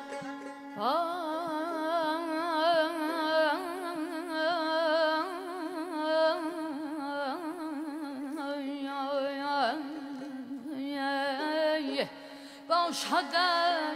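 Live Azerbaijani mugham music from a small traditional ensemble: a wordless melodic line with fast quivering ornaments over a steady held low note. It breaks off briefly near the end, and a new phrase begins with an upward slide.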